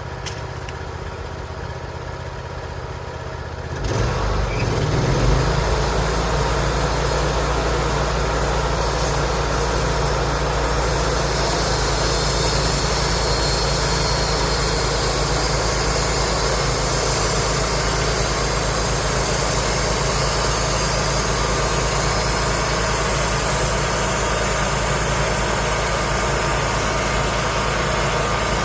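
Wood-Mizer LT35 portable bandsaw mill running: its engine hums steadily, gets much louder about four seconds in, and from about eleven seconds a steady higher hiss joins it.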